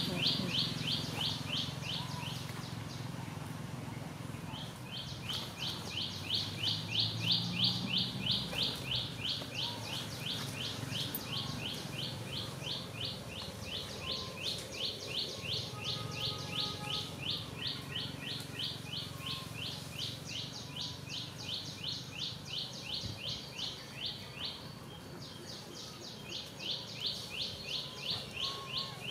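A high, rapidly pulsed animal call, several even pulses a second, repeating in long trains. It stops for a few seconds near the start and again briefly near the end.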